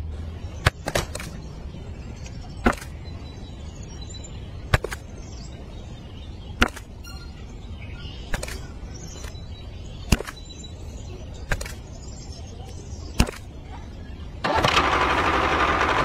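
Small twigs laid one at a time into a toy tractor's plastic trailer: a sharp click every one to two seconds over a low steady hum. Near the end a louder, fuller sound comes in.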